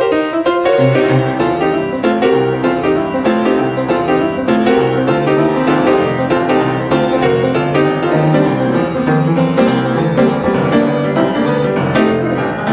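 Piano playing a blues intro: chords over a rhythmic, repeating bass line.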